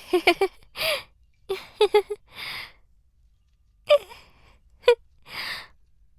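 A woman laughing in short bursts of quick "ha-ha" pulses, with breathy, gasping in-breaths between the bursts.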